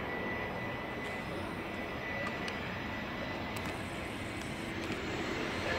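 Airbus A321-211 jet on short final, its CFM56 turbofan engines at approach thrust: a steady jet rumble with a faint steady whine on top.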